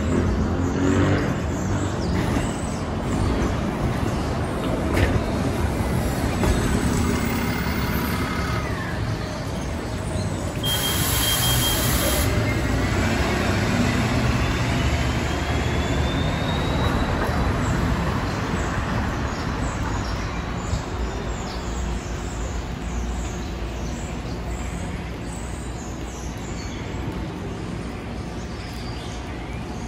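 City bus in street traffic, with a steady engine and road rumble. About eleven seconds in there is a short burst of air hiss, then a thin whine that rises in pitch over several seconds.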